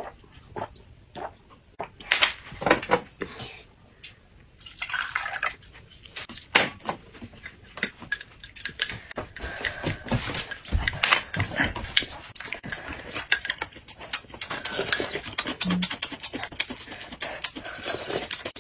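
Close-miked eating and drinking sounds: sips, slurps and chewing, with a metal spoon clicking against a glass bowl.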